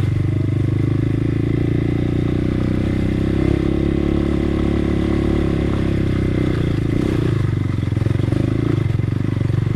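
Motorcycle engine running steadily while riding, a low, even drone.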